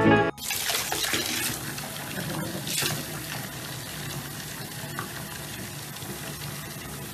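Water running steadily from a bathtub mixer tap and splashing into the tub as it fills.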